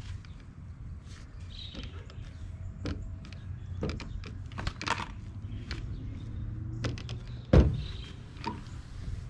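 Corded electric car polisher running with a foam cutting pad and cutting compound against a truck's painted body panel: a steady low hum with scattered clicks and knocks. One loud thump about three quarters of the way through.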